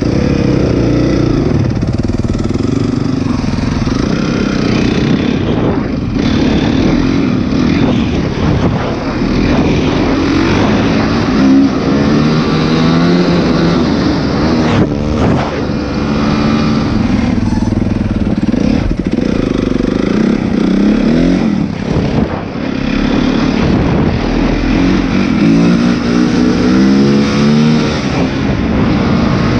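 Honda CRF four-stroke motocross bike ridden hard, its engine climbing in pitch through each gear and dropping back at every shift, again and again, with wind rushing over the microphone.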